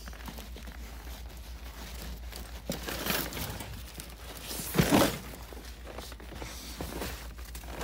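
Crinkling and crunching handling noise as snow-covered scrap is moved about, with a louder crunch about five seconds in.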